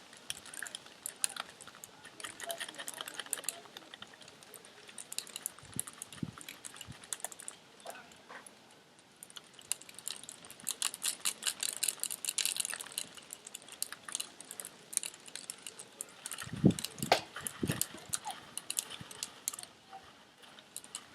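Dry lentils rattling and clicking as they are poured and handled, a dense patter of small ticks, with a few dull knocks about three-quarters of the way through.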